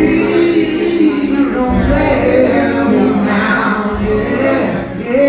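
Live music: a man singing long held notes over his own acoustic guitar.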